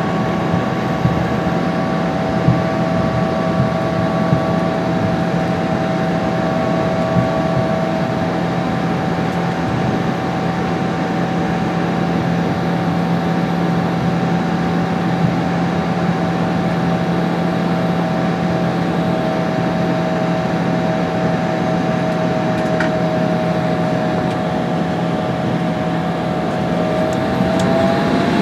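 Embraer ERJ 145's rear-mounted Rolls-Royce AE 3007 turbofan engines running at taxi power, heard inside the cabin: a steady whine over a rushing hum. Near the end the whine rises in pitch.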